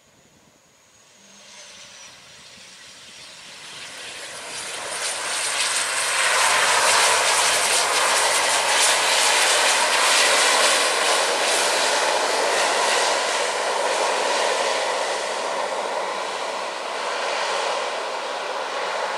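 ATR 72-500 turboprop's twin Pratt & Whitney PW127 engines and propellers running. The sound grows steadily louder over the first six seconds as the aircraft nears, then holds loud and steady as it rolls along the runway.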